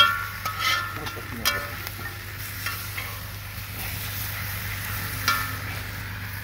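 Meat, sweet pepper and tomatoes sizzling as they fry in a pot, with a metal spoon stirring and clinking against the pot's side: a sharp clink at the start, more at about one and a half seconds and past five seconds.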